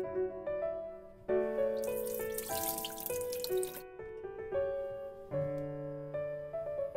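Running water splashes for about two and a half seconds, starting about a second in and stopping suddenly, over background music with steady sustained notes.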